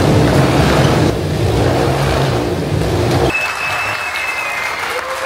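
Motorcycle engines revving steadily inside a steel-mesh globe of death. About three seconds in they cut off, giving way to audience applause with a thin high held tone.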